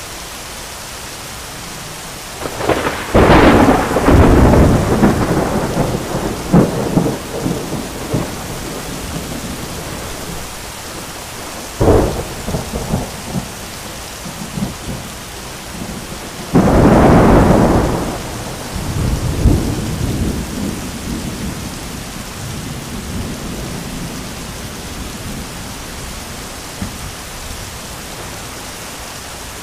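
Heavy rain falling steadily with three claps of cracking thunder: a loud crack a few seconds in that rumbles on for several seconds, a short sharp crack near the middle, and another loud crack a little past halfway that rolls off into a fading rumble.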